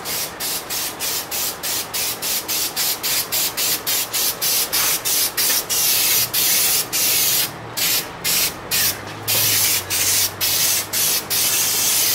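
Aerosol can of spray contact-cement adhesive hissing in rapid short bursts, about three a second, with a few longer sprays in between and a steady spray near the end, as the adhesive is laid on hardboard pieces.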